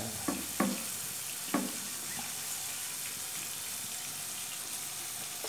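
Kitchen knife chopping through fried fermented pork onto a thick wooden chopping block: three knocks within the first second and a half, over a steady hiss.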